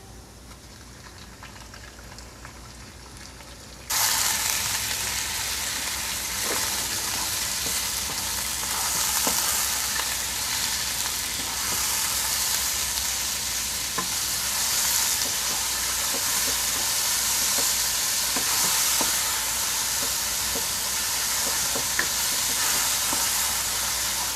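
Minced pork frying with chopped garlic in a hot non-stick pan, sizzling loudly as a wooden spatula stirs and breaks up the meat, with occasional light taps of the spatula on the pan. The sizzle starts abruptly about four seconds in, after a few quieter seconds.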